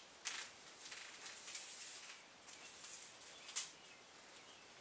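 Faint rustling and crackling of silver tape and its paper backing being peeled and pressed down along a seam of thin foam floor underlayment, with a couple of sharper crackles.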